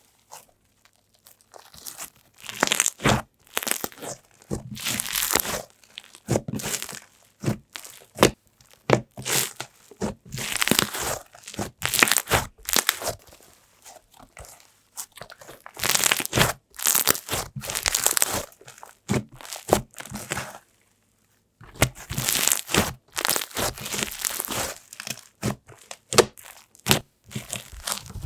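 Slime being squished and stretched by hand, giving irregular bursts of sizzling and small air-bubble pops, with a short pause about twenty seconds in.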